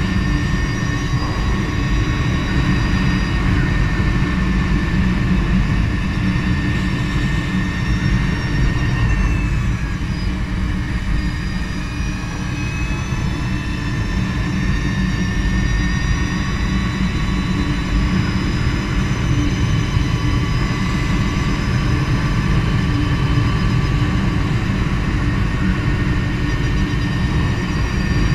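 Energica Eva electric motorcycle riding at speed: a steady high whine from its electric drive, several thin tones together, over a constant low wind rumble on the microphone. The whine's pitch falls around ten seconds in as the bike slows, then climbs again as it speeds back up.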